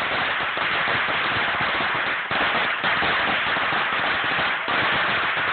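A very long string of firecrackers going off in a continuous dense crackle of rapid bangs, with brief dips about two seconds in and again near the end.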